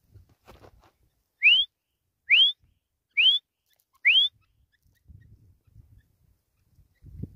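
Grey francolin calling: four loud, short whistled notes, each rising sharply in pitch, about one a second.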